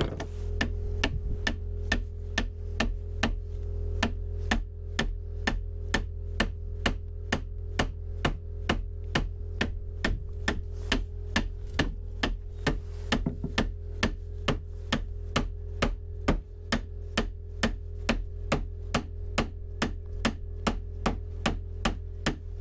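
Steady, evenly spaced knocking, about two and a half sharp knocks a second, over a low hum.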